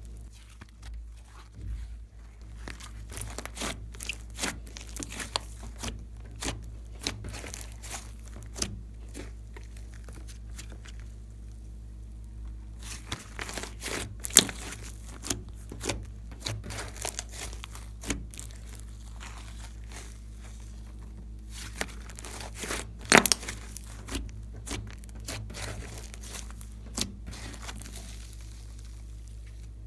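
Thick clay-mixed glitter slime being squeezed, stretched and pulled apart by hand, giving irregular crackling pops and soft tearing sounds. Two sharper pops stand out, about halfway through and again about two-thirds through.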